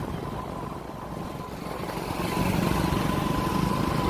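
Motorcycle engine running while riding through traffic, growing louder about halfway through.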